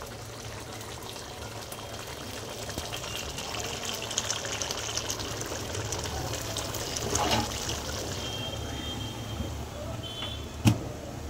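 Biryani rice and water bubbling at a boil in an aluminium pot over the stove, a steady watery seething with a low hum underneath. About a second before the end, a single sharp knock as the metal lid is set down on the cloth-covered pot to seal it for dum.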